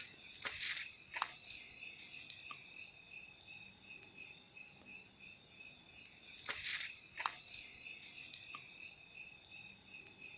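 Steady, pulsing chorus of crickets and other insects, with a few brief falling-pitch sounds cutting through it, two near the start and two about two-thirds of the way in.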